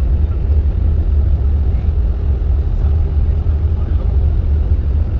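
Steady low rumble of a moving Greyhound coach bus, the engine and road noise heard from inside the cabin.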